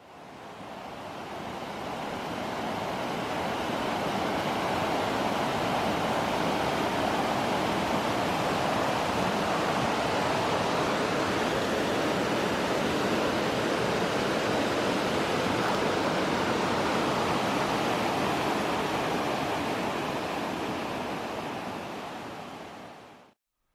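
Steady rush of river water pouring over a low-head dam spillway. It fades in over the first couple of seconds and fades out near the end.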